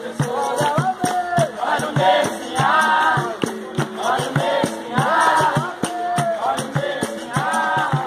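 Capoeira roda music: a group of voices singing over hand clapping and a steady percussion beat.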